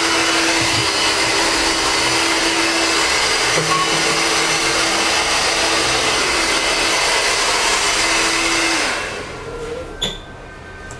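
Corded electric hair clippers running with a steady buzz, trimming a full beard; the buzz stops about nine seconds in.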